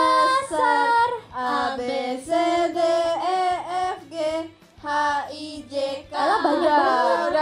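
Young women's voices singing short phrases into stage microphones, with breaks between phrases and several voices overlapping near the end.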